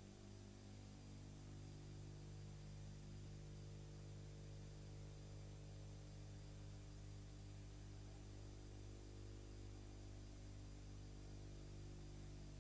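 Near silence: a steady low electrical hum with faint hiss.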